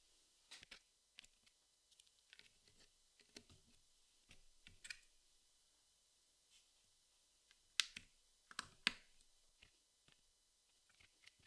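Jigsaw puzzle pieces being handled and pressed into place: light, scattered clicks and taps, with two sharper clicks in the second half.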